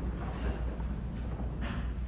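Room tone during a silent pause in prayer: a steady low hum with faint background noise, and two faint brief sounds, about half a second in and near the end.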